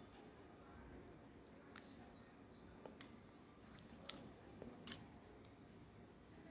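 Near silence over a steady faint high whine, broken by a few short clicks of a steel spatula against a non-stick kadhai as thick masala paste is stirred. The clicks fall about three, four and five seconds in, and the first is the loudest.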